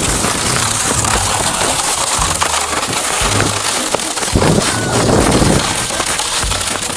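Plastic saucer sled sliding over crusted snow: a steady scraping hiss that swells for a second or so about four seconds in.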